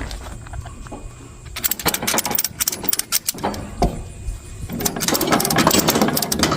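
A ratchet tie-down strap being cranked: runs of quick sharp clicks about halfway through and again, denser, near the end, over the low rumble of an engine running.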